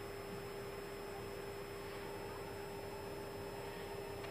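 Steady electrical hum with an even hiss behind it in the cockpit of a parked Airbus A320neo, its engines not yet started.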